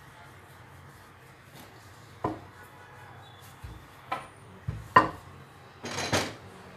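Wooden rolling pin rolling out roti dough on a countertop: quiet at first, then several sharp wooden knocks from about two seconds in, and a louder clatter near the end as the pin is put down.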